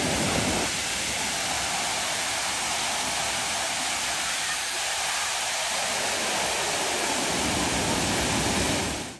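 Manimuthar waterfall pouring: a steady, even rush of falling water that cuts off abruptly near the end.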